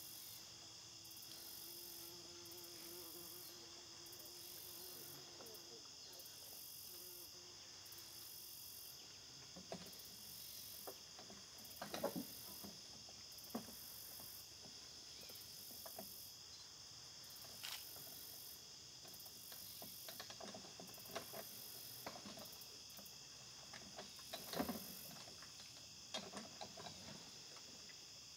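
Faint, steady chorus of crickets and other insects, with a higher layer of chirping that pulses on and off. From about ten seconds in come scattered soft knocks and rustles, the two loudest about twelve and twenty-four seconds in.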